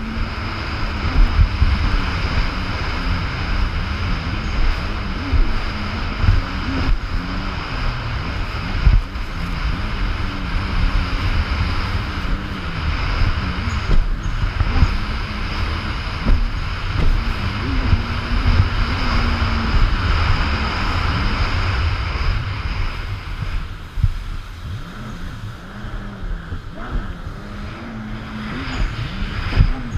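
Jet ski engine running hard, its pitch rising and falling with the throttle, under heavy wind buffeting on the helmet microphone. A few sharp knocks, such as the hull slapping down onto the chop, come through.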